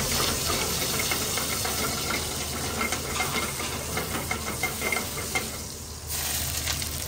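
Sablefish fillets searing in hot oil in a skillet over a gas burner, sizzling with many fine spattering crackles. The sizzle drops briefly about six seconds in.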